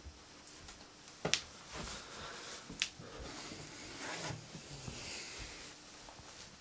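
Two sharp clicks about a second and a half apart, with rustling, shuffling and soft knocks of someone moving things about in a small room.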